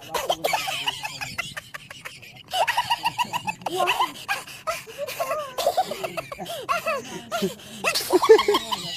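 A group of men laughing and chattering, with repeated bursts of laughter.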